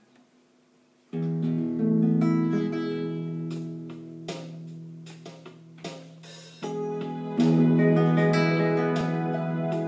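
Acoustic guitar played solo as a song introduction: after about a second of quiet, chords ring out and sustain. A new, louder phrase comes in about two-thirds of the way through.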